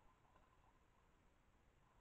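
Near silence: faint steady hiss of a trail camera's microphone, with a very faint thin tone.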